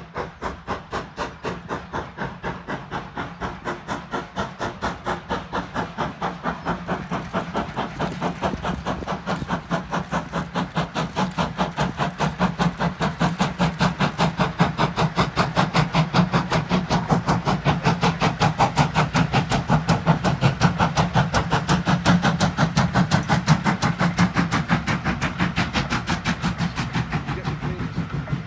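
Foremark Hall, a two-cylinder GWR Modified Hall 4-6-0 steam locomotive, working under steam with its exhaust beating in a fast, even rhythm. The beats grow louder as it approaches and passes, then ease a little as the coaches follow.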